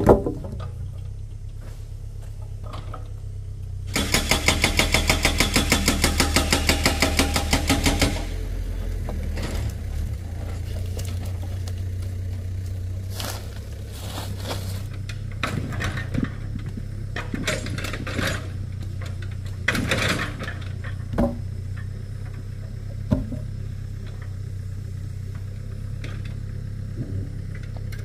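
A small engine running steadily at a low idle, revved up for about four seconds from about four seconds in, with scattered knocks and clicks afterwards.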